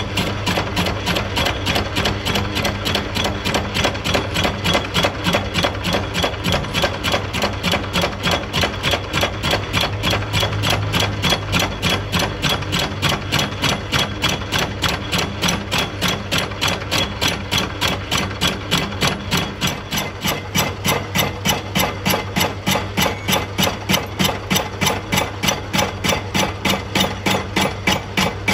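Metal lathe turning a disc harrow hub, running with a steady low hum and a regular knocking about three times a second as the tool cuts.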